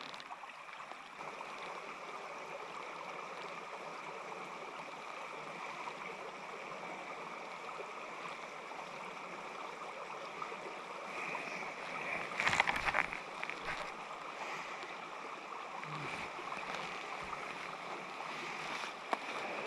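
Small mountain stream running steadily over rocks, with a short burst of clicks and rustles about two-thirds of the way through.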